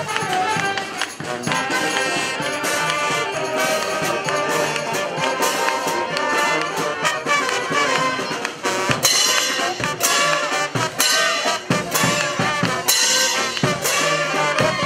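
Brass street band playing live: trumpets and trombones over marching drums, with the drum hits keeping a steady beat.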